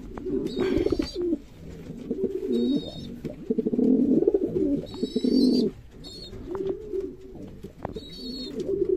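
Homing pigeons cooing in repeated low, rolling bouts, with a few short high squeaks in between.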